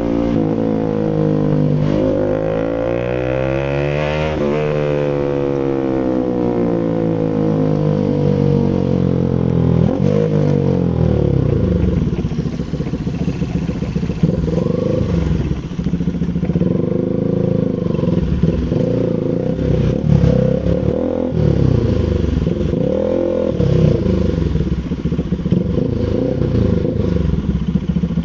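Bajaj Rouser RS200 single-cylinder engine running through an SC Project full exhaust system. The note climbs in pitch for about four seconds and falls back over the next several, then runs at varying revs with short throttle blips for the rest of the time.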